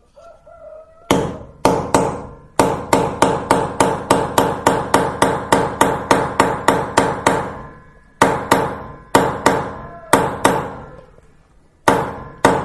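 Hand hammer striking a steel setting tool to expand an M10 drop-in anchor in its drilled hole: sharp metallic blows with a short ring after each. After a few opening strikes comes a fast, even run of about three to four blows a second, then slower, spaced blows near the end as the anchor seats.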